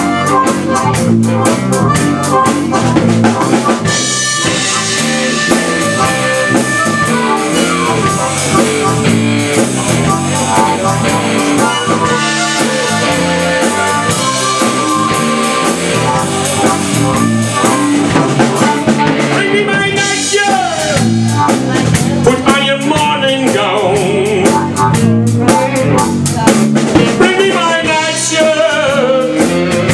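Live blues band playing, with a drum kit keeping a steady beat under two harmonicas played cupped against handheld microphones.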